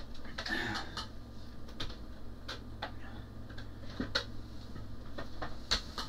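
Scattered light clicks and knocks of a plastic electronics project-lab kit being handled and picked up, over a steady low hum.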